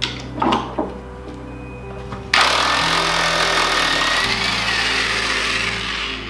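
Corded electric impact wrench hammering steadily for about four seconds, starting about two seconds in, while undoing a fastener on the Pontiac Fiero's front suspension. A couple of light metal clinks come just before it.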